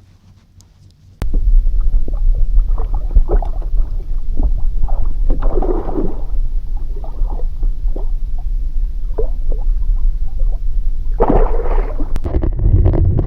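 A hooked fish thrashing and splashing at the water's surface in irregular bursts, over a heavy low rumble on the microphone that starts suddenly about a second in.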